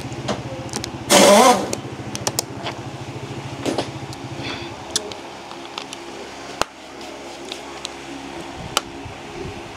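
A motor hums steadily with a low pulse, then fades and stops with a click about two-thirds of the way through. About a second in, a short, loud rushing burst is the loudest sound, and a few light clicks are scattered throughout.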